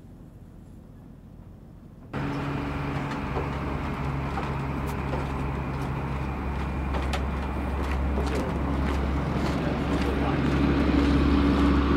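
A steady engine hum, low and even, starts suddenly about two seconds in after quiet outdoor background, with scattered light clicks over it.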